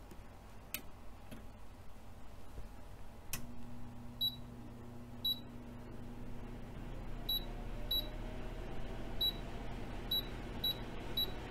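Short high-pitched confirmation beeps from a Smeg electric oven's touch control panel, about eight of them at uneven intervals, each one a press of the plus button as the cooking time is set. A low steady hum from the oven starts with a click about three seconds in.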